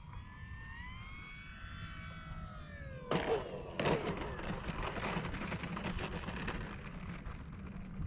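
Electric motor and propeller of an E-Flite Air Tractor 1.5m RC plane whining on the landing approach, the pitch dropping steeply as it throttles back. It touches down on the asphalt runway about three seconds in with two sharp knocks, then rattles as it rolls out.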